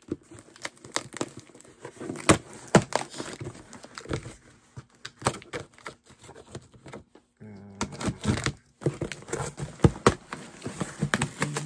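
A cardboard shipping box being opened by hand: irregular tearing, crinkling and rustling of tape, cardboard and packing, with sharp scratchy clicks.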